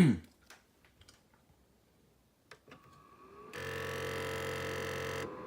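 A short loud sound at the very start, then a couple of faint clicks. Then a PlayStation 2 console's mechanism rises into a steady whir for about two seconds and drops to a quieter hum near the end. This is the unexplained noise its owner is asking about.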